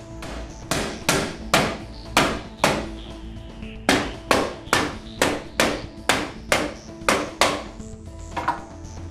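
A mallet tapping a metal roller-bearing drawer slide into place on the side of a wooden drawer box: sharp knocks, about five, a short pause, then about ten in quicker succession, with a few softer taps near the end.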